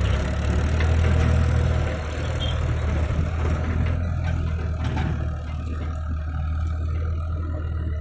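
Red Mahindra tractor's diesel engine running steadily as it pulls a trolley away, a little louder in the first two seconds.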